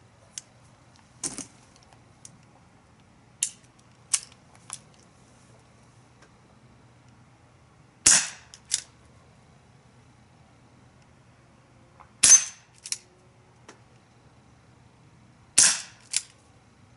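All-metal CO2-powered BB revolver firing three shots several seconds apart, each a sharp pop followed about half a second later by a fainter click. A few light clicks come in the first few seconds before the first shot.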